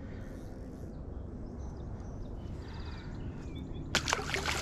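A released smallmouth bass splashing back into shallow river water about four seconds in, a short, loud splash over a steady low background.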